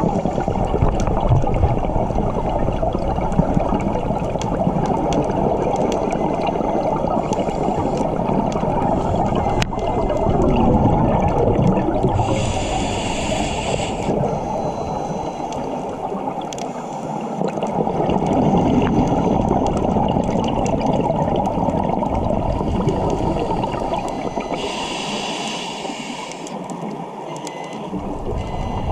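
Scuba regulator breathing heard underwater: a steady rush of exhaled bubbles, broken twice by a high hiss of inhalation lasting about two seconds, the two breaths about twelve seconds apart.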